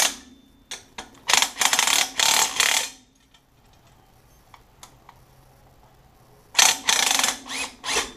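Cordless power driver running 10 mm bolts in: two bursts of a second or two each, with a quiet gap and a few faint clicks between them.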